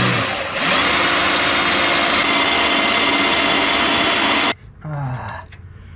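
Cordless battery drill running at high speed, boring a hole through a plastic mounting panel, then stopping abruptly about four and a half seconds in. The drill is pressed down hard enough that the plastic lifts and cracks around the hole.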